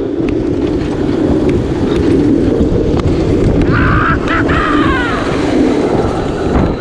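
Wind rushing hard over the microphone as the roller coaster train runs through its course, with a short higher sound that falls in pitch about four seconds in.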